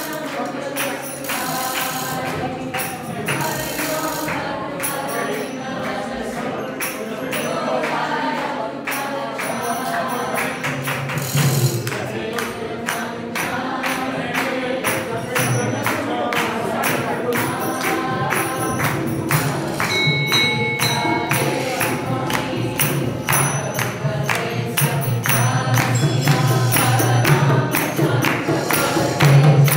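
Kirtan: a group singing a devotional chant together, with jingling percussion and handclaps keeping a steady beat.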